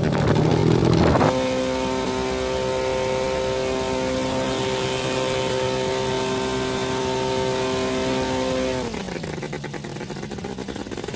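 Engine of a homemade light aircraft running at high, steady revs, then throttled back about nine seconds in, its note dropping and quieting.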